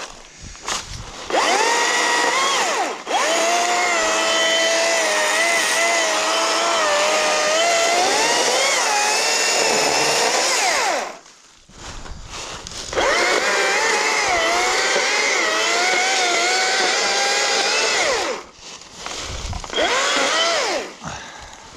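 Gas chainsaw cutting through logs for firewood: two long cuts of several seconds each at high revs, the engine pitch sagging and wavering as the chain bites, with a short rev near the end.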